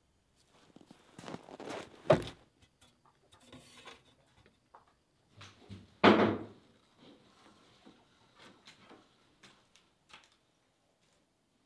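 Rustling, handling noises and light clicks, with two heavy thumps, one about two seconds in and a louder one about six seconds in.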